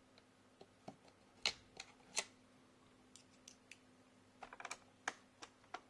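Scattered sharp clicks and taps of a screwdriver and small screws against the plastic underside of an HP 15 laptop as its case screws are taken out. The two loudest clicks come about a second and a half and two seconds in, with a quick run of small ticks near the end.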